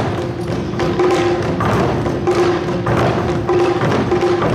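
Live Awa Odori music from a street band: drums keep a steady, driving beat with a repeating melody line over it.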